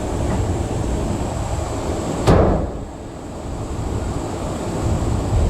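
Hand-tool work on a Honda K24 engine being torn down: a single sharp metallic clank a little over two seconds in, over a steady low rumble.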